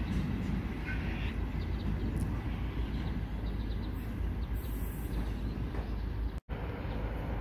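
Freight train wagons rolling away on the rails: a steady low rumble that slowly fades as the rear of the train recedes, broken by a brief drop-out near the end.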